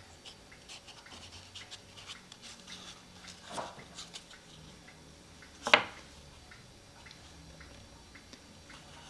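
Faint rustling and small ticks from handling a cuckoo clock bellows, its wooden parts and paper, with a soft knock about three and a half seconds in and a sharper click a little before six seconds.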